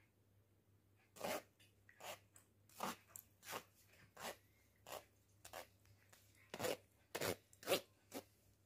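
A metal mesh strainer full of freshly churned butter is worked over a steel bowl to drain off the buttermilk. It gives about a dozen short, scratchy strokes, roughly one every 0.7 s, starting about a second in.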